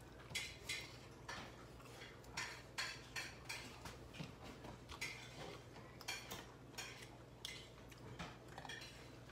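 Scattered light clicks and taps of a meal being eaten by hand at a table, with food and fingers against bowls and plates, about two small clicks a second.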